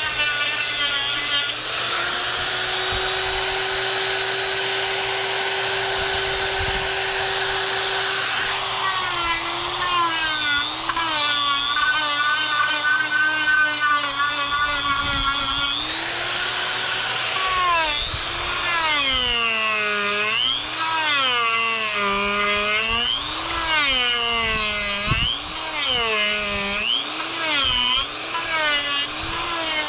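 Harbor Freight Hercules 1/4-inch corded die grinder running with a high motor whine. It holds a steady pitch at first, then from about halfway on its pitch sags and recovers over and over, about once a second, as the bit is pressed into the wood.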